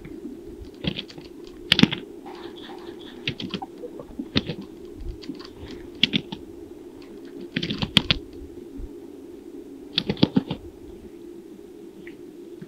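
Greater sage-grouse males strutting on a lek: clusters of sharp pops and swishes from the display, coming about every two seconds over a steady low background.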